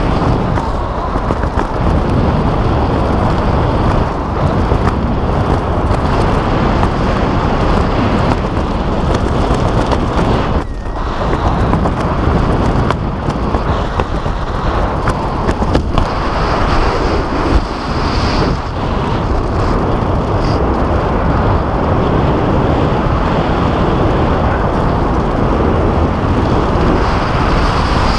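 Steady wind noise buffeting the camera's microphone from the airflow of flying under an open parachute canopy.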